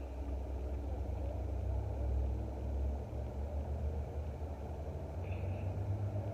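A car idling, a low steady rumble.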